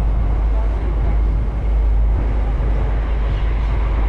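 Steady low rumble and noise aboard a half-day sportfishing boat, with voices in the background.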